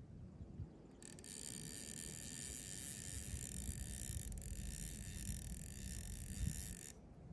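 Fly reel's ratchet clicking in a fast steady buzz as line is wound in, starting about a second in and stopping shortly before the end, over a low wind rumble.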